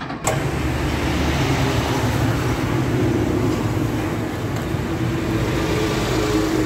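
A vehicle engine running steadily with loud road or mechanical noise. It starts abruptly about a quarter second in.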